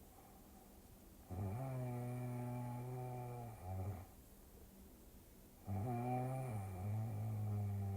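A person snoring: two long, buzzing snores of about two and a half seconds each, one starting about a second in and the other about two seconds before the end.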